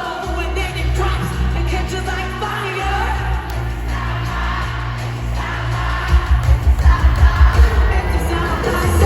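Live pop music: female singing over a loud amplified band with heavy bass. About six seconds in, a fast, punchy drum beat comes in and the music gets louder.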